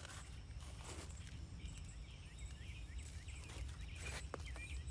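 Outdoor garden background: a steady low rumble of wind on the microphone, faint short bird chirps, and a few soft rustles.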